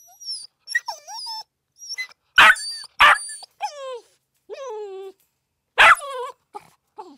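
Dogs barking and whining: a run of short yips and whines, several falling in pitch, with three louder sharp barks in among them.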